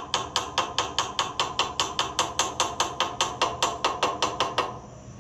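A hand tool working a rusty bolt on a tractor's light bracket: a fast, even run of sharp metallic clicks, about five a second, that stops a little before the end.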